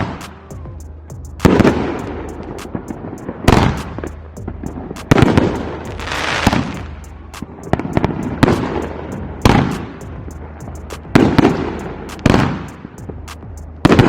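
Consumer fireworks cake (Critical Mass) firing shot after shot: about nine loud bangs one to two seconds apart, each trailing off in a crackle.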